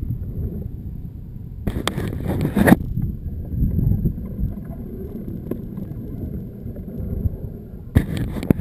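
Wind rumbling on the microphone and road noise while riding a Zero FX electric motorcycle, with two short crackling bursts, about two seconds in and near the end.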